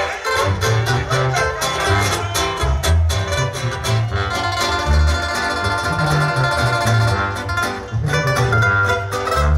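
Live band music playing loudly, a corrido with bass notes on a steady beat.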